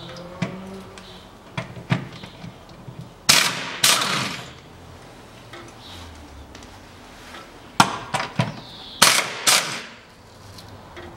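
Pneumatic impact wrench fired in several short bursts: a pair about three to four seconds in and another group about eight to nine and a half seconds in, with a few sharp metal tool clinks in between.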